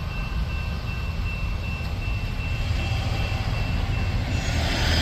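Freight train's open hopper cars rolling away along the track: a steady low rumble with a thin, steady high whine over it, swelling slightly near the end.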